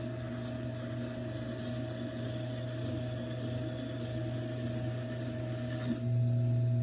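Tormek T4 wet grinder's motor running with a steady hum while a knife edge is ground across its stone, dressed to about 100 grit, giving an even rasping scrape. About six seconds in the scraping stops as the blade lifts off, and the motor hum is left on its own, louder.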